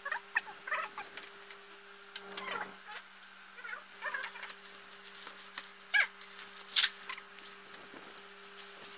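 Plastic packaging bags crinkling and rustling as they are handled, with short squeaks that slide in pitch and two sharp crackles about six and seven seconds in, over a faint steady hum.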